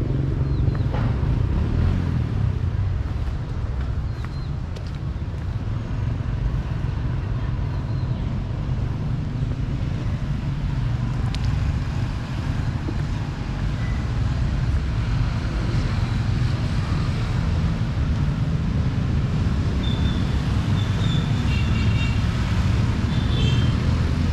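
City street traffic: a steady low rumble of passing motor vehicles, easing for a moment a few times.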